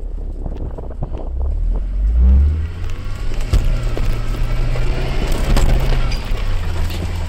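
Vauxhall Frontera 4x4 engine pulling as the vehicle climbs and lurches over a rough off-road track, heard from inside the cabin, with knocks and rattles from the body. A rushing noise builds from about halfway through.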